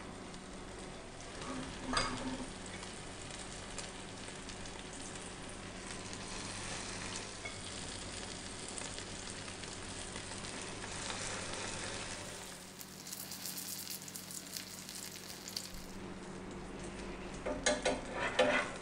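Zucchini roti patties frying in butter and olive oil in a cast iron pan: a steady sizzle and crackle. A sharp knock comes about two seconds in, and a run of sharper knocks near the end.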